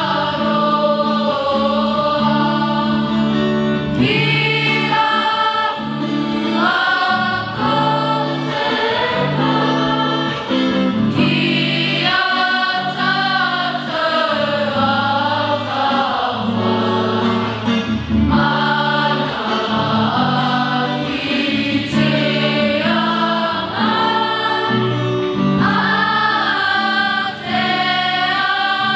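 A choir singing a slow song over held low notes from an instrumental accompaniment.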